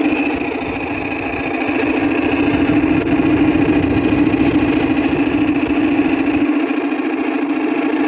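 A 2000 Whirlpool window air conditioner running noisily, with a steady rough drone and a high whine on top from its fan motor. The fan motor's bearings are worn and dry and need oil.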